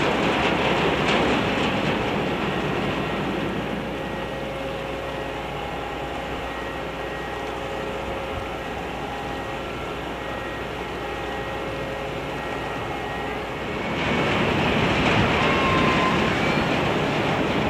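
Steady rush of wind and harbour water with the low, even hum of the Kuroshio Maru's engines as the ferry moves slowly past. The rush grows louder about 14 seconds in.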